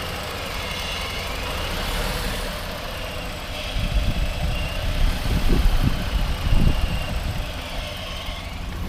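Freshly rebuilt Jeep 3.7-litre V6 idling, run up to temperature while air bleeds out of the cooling system. The idle goes up and down, which the owner suspects is a vacuum leak. Irregular low thumps join from about four seconds in.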